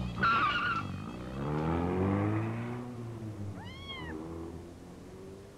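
A kitten meows once about four seconds in, a single meow that rises and falls. Underneath, a low drawn-out drone fades away.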